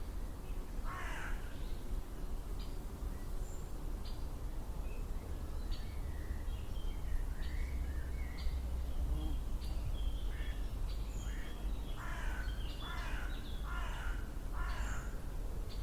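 A crow cawing: one harsh caw about a second in, then four caws in a row near the end. Small birds chirp faintly between the caws over a steady low rumble.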